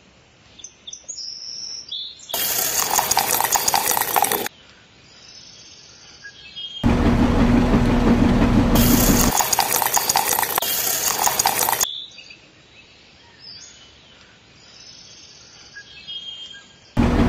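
Small motor and gear drive of a miniature concrete mixer running in spells that cut in and out abruptly, with a steady hum in the longest spell. Between spells, wet concrete scrapes and slops as it slides down the mixer's little chute.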